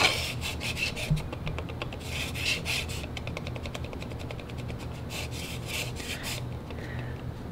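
A 3D-printed plastic jig collar rubbing and rasping as it is slid and twisted on a steel bar. There are three bouts of fast scratchy ticking: near the start, around two seconds in, and again around five seconds in. The jig's bore is still a bit wiggly on the bar.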